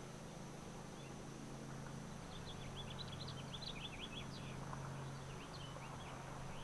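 Small birds chirping: a quick flurry of short high chirps a couple of seconds in and a few more near the end, over a steady high tone and a low rumble.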